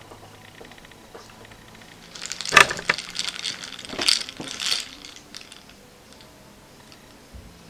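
Small hard objects clattering and clicking in a rapid cluster from about two to five seconds in, loudest near the start of the cluster.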